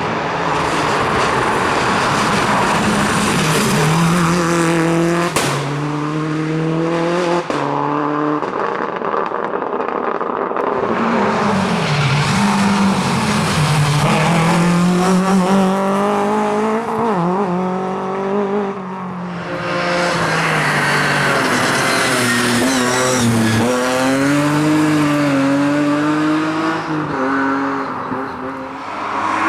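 Rally cars driven flat out on a sprint stage, engines revving hard and rising and falling in pitch through repeated gear changes and lifts, with tyre noise. There are a couple of short sharp cracks early on.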